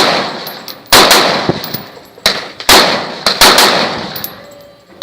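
Cobalt Kinetics BAMF AR-15 rifle fired semi-automatically: about four sharp shots at uneven spacing, two of them close together in the middle, each followed by a long echoing decay.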